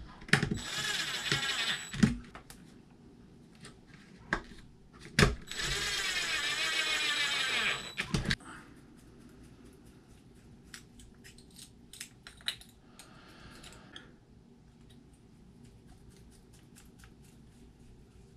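Two bursts of hissing gas with a thin high whistle, about one and a half seconds and then about three seconds long, with sharp clicks and knocks between them; after that, only faint clicks of small parts and tools being handled.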